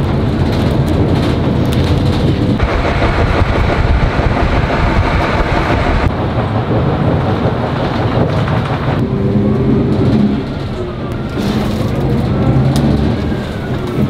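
Inside a moving city bus: the engine hums and the road rumbles steadily, and the noise shifts abruptly every few seconds. In the last few seconds a faint whine rises and falls in pitch.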